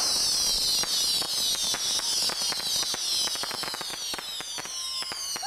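Whistling fireworks: several high shrill whistles sliding slowly down in pitch together and fading toward the end, over a scattered crackle of small pops.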